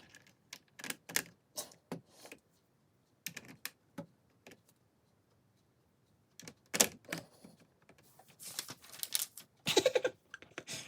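Plastic LEGO bricks clicking and snapping together while pieces are handled: irregular sharp clicks, a pause in the middle, then a denser rattle of pieces being sorted near the end.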